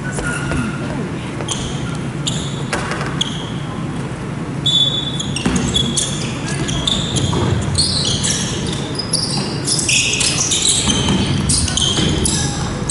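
Basketball game on a wooden gym floor: the ball bouncing and sneakers squeaking on the hardwood, echoing in a large hall. The short, high squeaks come thick and fast from about five seconds in, once play gets going.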